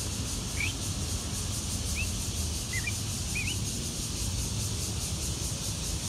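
A few short, rising chirps from a common myna, spaced out over the first few seconds, over a steady low rumble.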